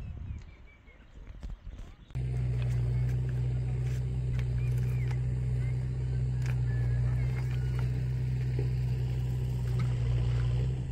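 An engine or motor running steadily with a low, even hum, which starts abruptly about two seconds in.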